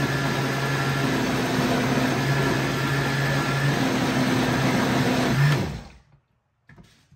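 Hamilton Beach countertop blender running steadily as it purées a thick mix of dog food, water and milk. About five and a half seconds in it is switched off and the motor winds down within half a second, followed by a couple of faint clicks.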